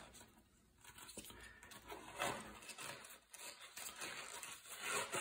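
Rubber RC drag car tire with a foam insert being squeezed and worked onto its plastic wheel by hand: faint, irregular rubbing and scuffing of rubber and foam, with a few louder scuffs.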